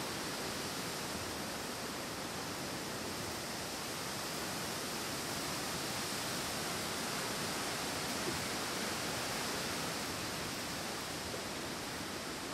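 Wind blowing through forest treetops: a steady rushing hiss of moving leaves and branches. It swells slightly about two-thirds of the way in.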